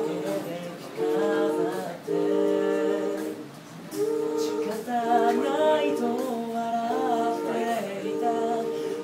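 A cappella vocal group singing unaccompanied in close harmony: held chords in short phrases, broken by brief gaps about every second or so.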